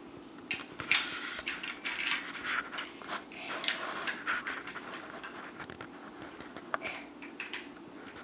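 Small plastic toy bricks clicking and scraping as pieces are handled and pressed onto a brick-built toy dump truck: a busy flurry of clicks and rustles over the first few seconds, then a few scattered clicks.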